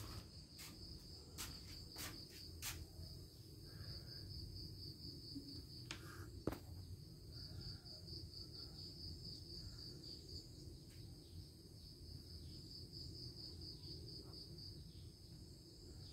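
Faint cricket chirping: a steady run of high, even pulses with short breaks, along with a few scattered clicks, the sharpest about six and a half seconds in.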